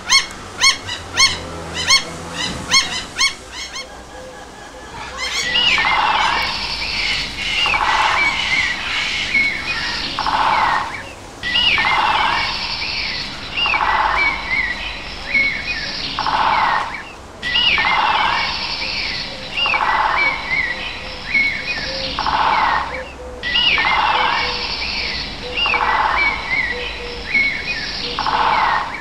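Birds chirping and whistling, opening with a quick run of short, evenly spaced pitched calls that fade away. Then a dense chorus of chirps and whistles follows, with the same pattern repeating about every six seconds, like a looped birdsong recording.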